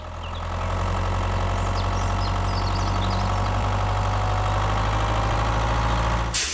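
An engine idling steadily, fading in over the first second and cutting off abruptly near the end.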